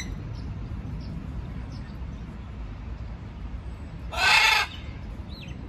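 A macaw gives one loud, harsh squawk about four seconds in, over a steady low background rumble.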